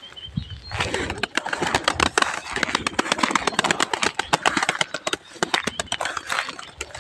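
Pigeons flying close by, their wings flapping in a rapid run of sharp beats from about a second in until near the end.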